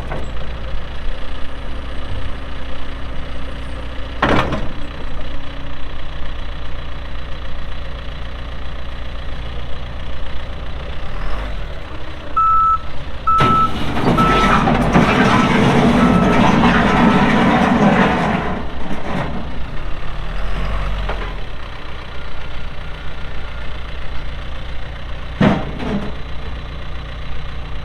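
John Deere 410L backhoe loader's diesel engine running, with sharp knocks about four seconds in and near the end. Midway its reverse alarm beeps about six times at an even pace while the machine gets louder for about five seconds.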